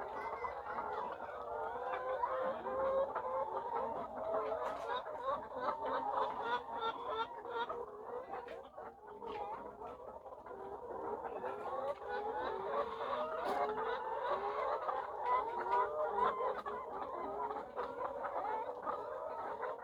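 A flock of caged layer hens clucking and calling together in a steady, overlapping chatter, with scattered small clicks and taps among them.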